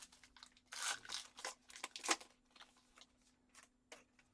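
An Allen & Ginter baseball card pack wrapper being torn open and crinkled: a quick run of rips and crackles about a second in, lasting a second and a half, then a few smaller crinkles.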